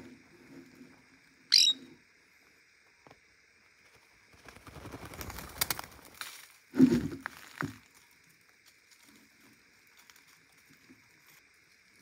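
A parakeet gives a sharp, loud squawk that sweeps up and back down, about a second and a half in. In the middle, parakeets flap their wings in a rustling flurry as they take off and fly past, loudest around the seventh second. Insects buzz faintly and steadily in the background.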